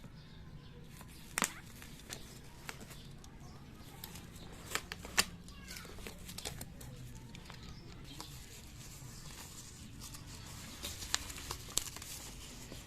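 Parcel packaging being torn open and crinkled by hand, in scattered sharp rips, rustles and clicks.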